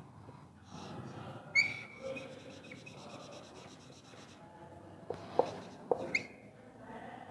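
Marker pen on a whiteboard. A sharp squeak comes about one and a half seconds in, then a few seconds of quick back-and-forth scratching as wedge bonds are filled in. Near the end there are a few taps of the tip and another short squeak while letters are written.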